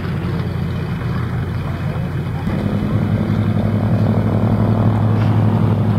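Douglas C-47A's twin Pratt & Whitney R-1830 radial engines running with propellers turning as the plane rolls along the airstrip after touchdown: a loud, steady, low engine drone that changes abruptly about two and a half seconds in.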